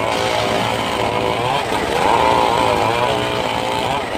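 Circular saw running while it cuts mahogany wood, its pitch sagging under load and climbing back several times.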